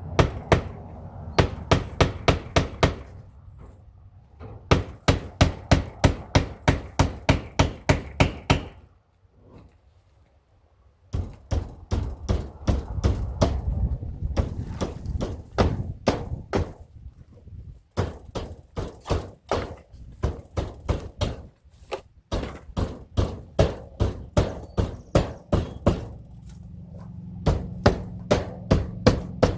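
Hammer driving a nail into an old wooden window frame, in runs of rapid blows at about four a second, with a pause of about two seconds midway.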